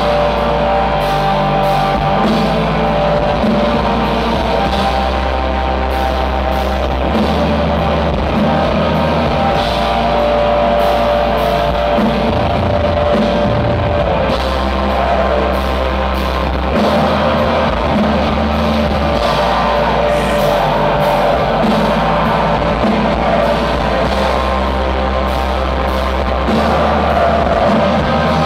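Black metal band playing live and loud: distorted electric guitars over dense drumming and sustained bass notes that change every few seconds.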